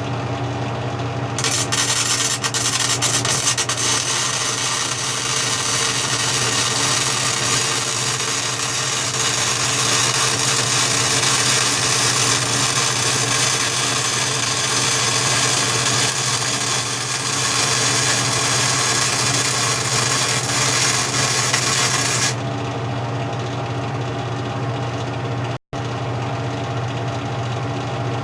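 Century FC90 flux-core wire-feed welder laying a test bead with the voltage at 6 and the wire feed at 5: the arc crackles and sizzles steadily for about twenty seconds, starting about a second in and stopping abruptly. Under it and after it, the welder's steady hum.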